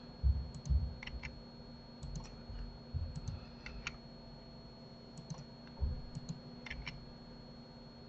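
Scattered clicks of a computer mouse and keyboard keys, a few to a couple of seconds apart, with soft low thumps on the desk, over a faint steady hum.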